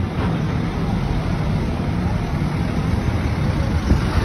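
Busy city street traffic: cars and taxis running close by, a steady rumbling noise heavy in the low end.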